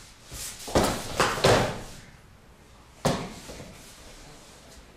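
Scuffling thumps of a person moving on hands and knees across a wooden stage floor: a quick cluster of thumps and rustles, then one sharp knock about three seconds in.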